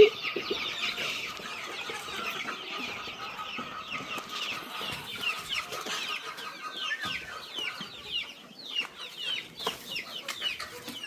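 A flock of young Boschveld chickens peeping and cheeping together, a dense stream of short, high, falling chirps, with one loud short call right at the start.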